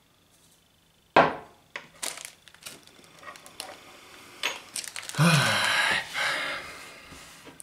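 Handling a glass and a clear plastic bag of loose black tea: one sharp knock about a second in, then small clicks, then a stretch of close-up plastic-bag crinkling around five seconds in.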